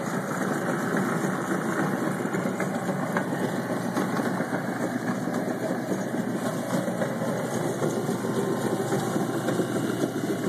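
Homemade Whizbang-style tub chicken plucker running empty: its electric motor drives the rubber-fingered spinning plate through a V-belt, with a steady mechanical whir and rattle that builds slightly in the first second, then holds.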